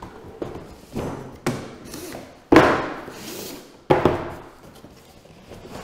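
Cardboard boxes slid out of a larger shipping box and set down on a wooden table: a series of about five thuds, each with a short scrape of cardboard, the loudest about two and a half seconds in.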